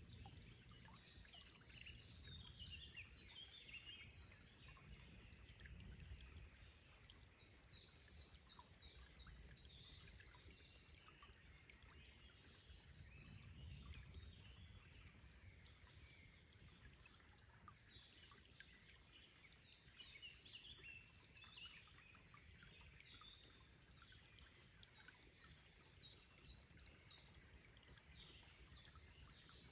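Several birds singing and calling, with repeated rapid trills of quick high notes, over the soft steady sound of a running forest stream.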